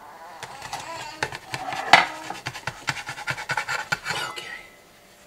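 Metal spatula clinking and scraping against a springform cake pan: a quick run of small taps and clicks, with the loudest knock about two seconds in.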